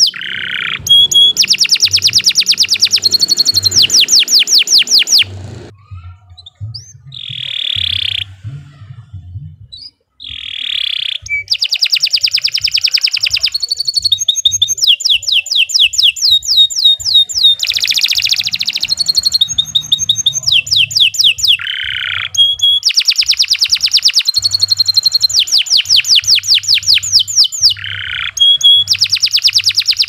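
Domestic canary singing a long, vigorous song made of fast rolling trills: runs of rapidly repeated high notes lasting several seconds each. About five seconds in, the song breaks off for about five seconds, with only a few scattered single notes, and then runs on almost unbroken to the end.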